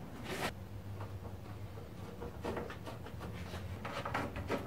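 Faint metal clicks and scrapes as bolts are tightened by hand onto the radiator's top hold-down bracket, over a low steady hum.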